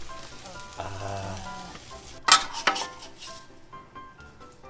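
Metal spatula scraping and knocking on a steel flat-top griddle as pancakes are lifted off, with two sharp knocks a little past halfway. Under it the griddle sizzles lightly, with background music.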